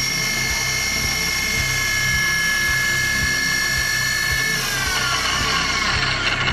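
ProtoTrak DPM3 CNC milling machine spindle running with a steady high whine while engraving bar stock, then winding down, its pitch falling from about four and a half seconds in as the spindle stops. A faint low knock repeats about twice a second underneath.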